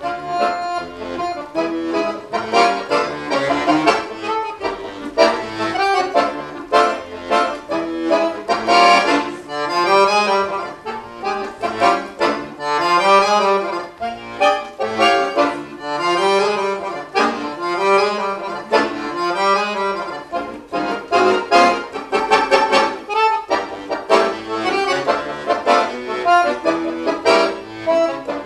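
Weltmeister piano accordion played solo: fast runs of notes with chords. Through the middle, a rising-and-falling figure in the lower notes repeats every second or two.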